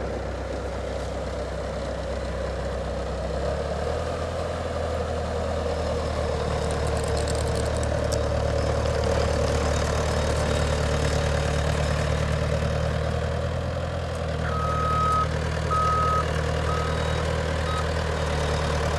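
Bobcat skid steer's engine running steadily while it maneuvers, its note stepping up a few seconds in. Near the end its backup alarm sounds four high beeps, the first two long and the last two short, as the machine reverses.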